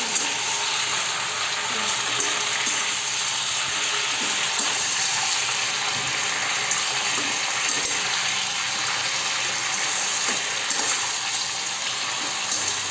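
Sliced spiny gourd (kheksa) sizzling steadily in hot mustard oil in a metal kadhai, stirred with a spatula that scrapes and knocks against the pan now and then.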